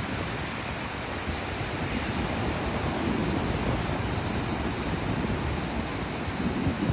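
Ocean waves washing onto a shore, a steady rushing hiss that swells gently and surges again just before the end.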